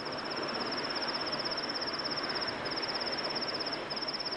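A cricket's continuous high, rapidly pulsing trill, breaking off briefly twice, over a steady rushing background.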